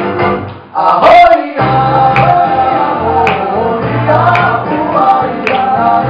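Live acoustic guitar strummed under male singing. The music drops away briefly less than a second in, then comes back with the voice and guitar.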